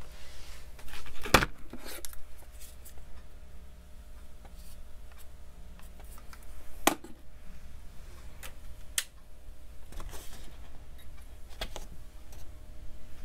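A few sharp clicks and knocks of small craft items being handled on a table, with brief rustles in between; the loudest click comes about a second and a half in.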